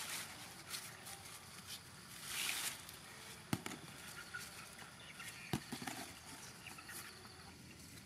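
Rustling of cucumber vines and leaves as cucumbers are picked by hand, with two sharp clicks about two seconds apart in the middle.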